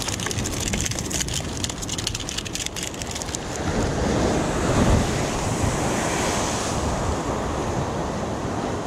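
Sea surf washing against rocks with wind buffeting the microphone, swelling loudest about five seconds in. Rapid crackling ticks run through the first three seconds.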